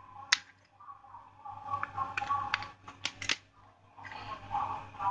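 Sharp plastic clicks and taps as an opened smartphone and its small charging-port board are picked up and handled for refitting. The loudest click comes just after the start, then a quicker cluster of about five clicks around the middle.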